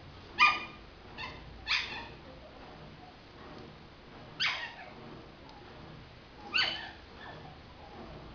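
Schnauzer puppies giving short, high yaps now and then, about five separate ones, the loudest about half a second in.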